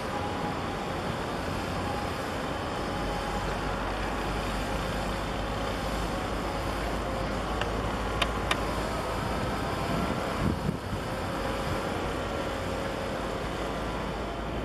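Steady low rumble of distant engines and outdoor noise. A few faint clicks come about eight seconds in, and a brief low thump about ten and a half seconds in.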